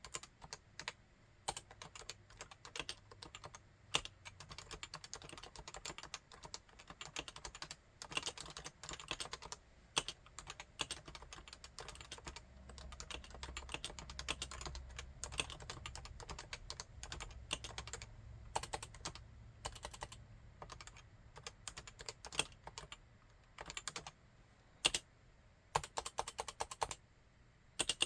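Typing on a Realforce 87UW tenkeyless keyboard with Topre electro-capacitive switches: fast runs of keystrokes broken by short pauses, with a few louder single strokes standing out.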